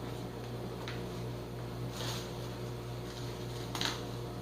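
Steady low electrical hum, with three brief rustles or soft scrapes from handling the decorations about one, two and nearly four seconds in, the last the loudest.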